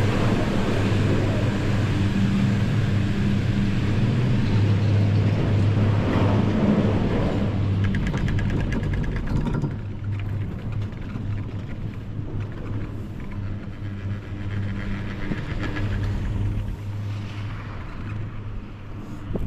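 Detachable high-speed chairlift machinery humming steadily. A rapid run of clicks comes about eight seconds in, and the sound grows quieter from about ten seconds.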